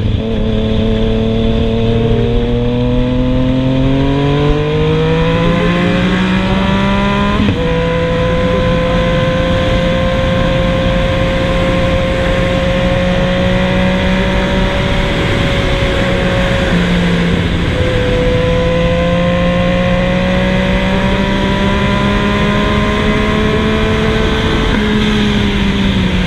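Yamaha MT-09's three-cylinder engine running through a Scorpion GP720 stainless full 3-into-1 exhaust, revs climbing over several seconds. The pitch drops suddenly about seven and a half seconds in, then holds nearly steady, with a brief dip past the middle and another shift near the end.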